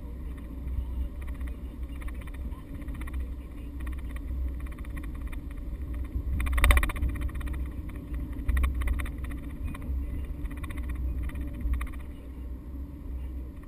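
Steady low road and engine rumble of a moving car, heard from inside the cabin. A short, louder noise comes about six and a half seconds in.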